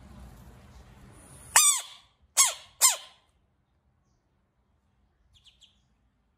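Three loud squawking animal calls in quick succession, each rising then falling in pitch, followed a couple of seconds later by faint high chirps.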